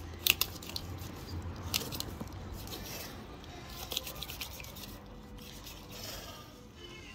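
Filleting knife cutting a large snapper's fillet away from the frame, scraping along the rib bones with sharp clicks and short scratchy strokes as the blade catches on bone.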